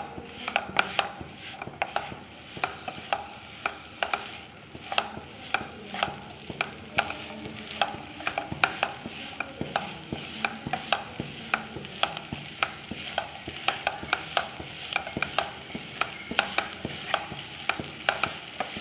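A spatula stirring and scraping a coconut and chana dal filling in a nonstick frying pan. Quick, irregular knocks and scrapes come several times a second as the filling is sautéed over the flame.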